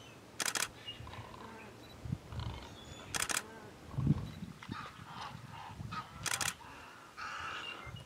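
Wetland birds giving scattered harsh calls, broken by three short bursts of rapid clicks about three seconds apart.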